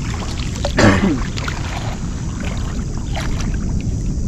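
Shallow water sloshing and dripping around a wading man's legs and a wet cast net as he gathers it for a throw, over a steady low wind rumble on the microphone. A louder splash comes about a second in.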